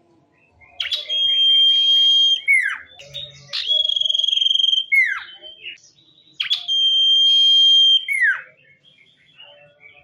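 Sirtu songbird singing three repeated phrases, each a long, steady, high whistle of about a second and a half ending in a quick downward slur, beginning about a second in, about three and a half seconds in, and about six and a half seconds in.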